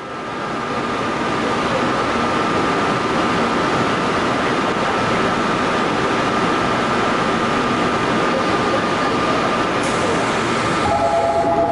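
Seoul Metro Line 4 subway train running through a tunnel: a steady loud rushing rumble with a steady high tone over it, fading in at the start. Near the end two lower tones join and the noise begins to pulse.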